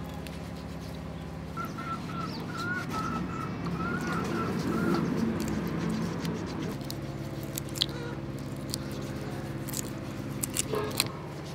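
A bird chirps a warbling call for a few seconds over a steady low hum. Later come a few sharp clicks and taps as raw shrimp are peeled over a steel bowl of water.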